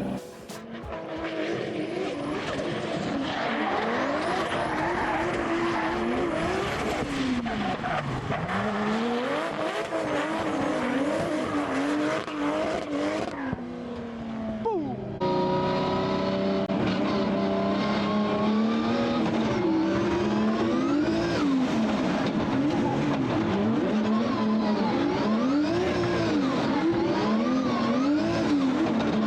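Nissan Silvia drift cars' engines revving up and down over and over as they slide through corners, with tire skid noise. The sound changes abruptly about halfway through.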